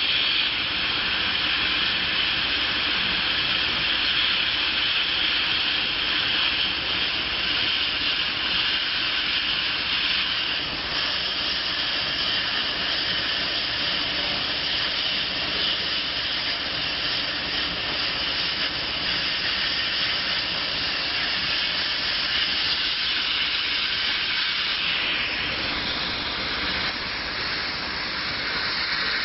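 Laser cutting machine at work cutting paper: a steady rushing hiss of air with a low machine hum beneath it.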